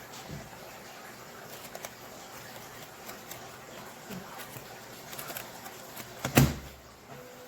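A few faint clicks and knocks, then one loud thump about six seconds in.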